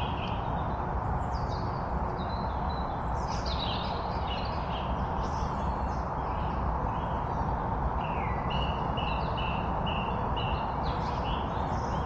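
Woodland dawn chorus: several birds singing, one repeating a short clear note in runs of about six, roughly two a second, over a steady hiss.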